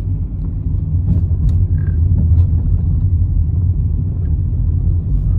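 A car driving along a road: steady low rumble of tyres and engine, with a few faint ticks above it.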